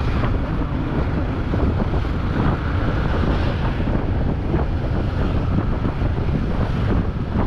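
Wind buffeting the microphone of a GoPro on a moving Yamaha R15 V3 motorcycle: a steady, loud low rumble, with the bike's engine and road noise underneath.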